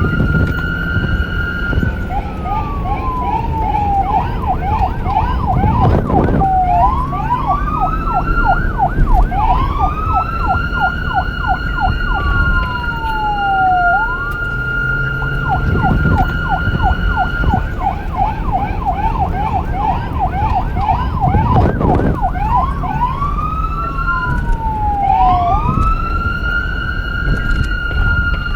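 Electronic police car siren cycling through its tones: a steady high note, a falling glide, a fast yelp of about three sweeps a second, then slower rising wails, the whole cycle heard twice. A low vehicle rumble runs underneath, with a brief louder burst about six seconds in and again near twenty-two seconds.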